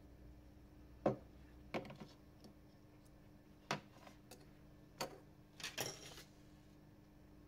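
A handful of light clicks and taps as a smartphone circuit board and the phone's plastic housing are handled on a wooden desk, irregularly spaced, with a short flurry of them near the end.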